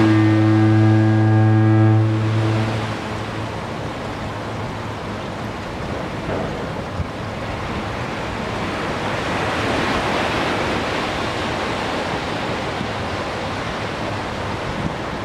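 A foghorn sounds one deep, steady blast about two seconds long, fading out shortly after, over surf breaking on the shore. The surf carries on after the horn stops and swells again later.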